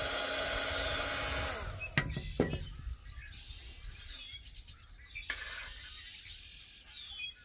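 Small handheld craft heat gun blowing while it melts a synthetic fabric flower, switched off about a second and a half in. A couple of knocks follow as it is set down, then wild birds chirping.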